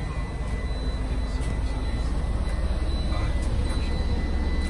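Scania coach's diesel engine idling steadily, heard as a low rumble inside the cabin, with a faint steady high-pitched whine over it.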